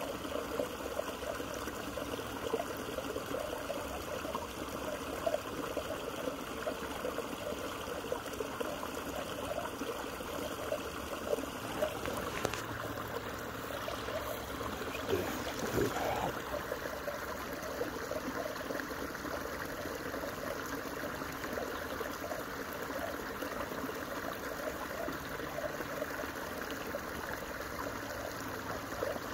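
Running water trickling and gurgling steadily.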